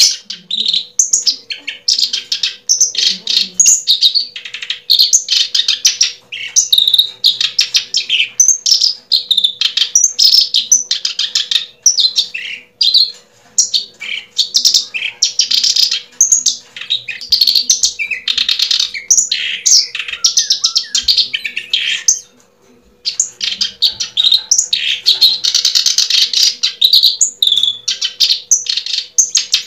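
Small birds chirping rapidly and loudly, dense high chirps almost without a break, with a brief lull about two-thirds of the way through.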